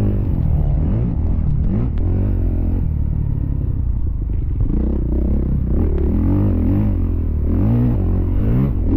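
Motocross dirt bike engine, heard from on the bike, revving up and easing off again and again as the rider accelerates out of turns and shifts, with scattered sharp knocks from the bike.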